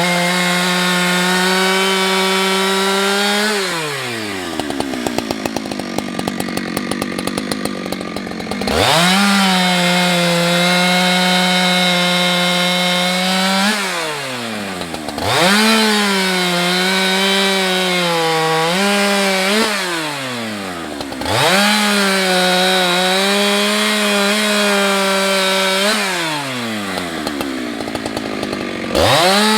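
Two-stroke gas chainsaw run at full throttle in four long bursts, dropping back to a ticking idle between them. The engine pitch dips and wavers while held wide open as the chain bites into the wood.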